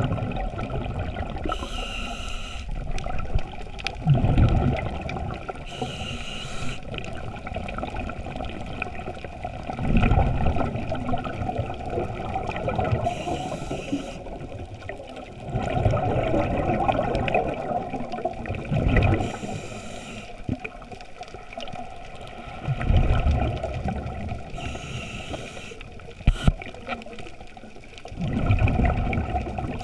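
Scuba diver breathing through a regulator, heard through an underwater camera housing: a hiss on each inhale and a rush of bubbles on each exhale, a few seconds apart. A sharp click near the end.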